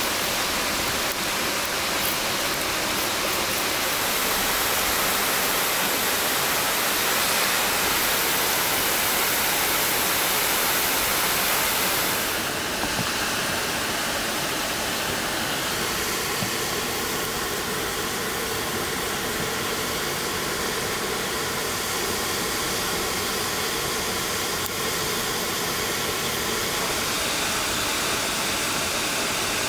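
Steady rushing of a waterfall, an even wash of water noise that changes tone abruptly about twelve seconds in.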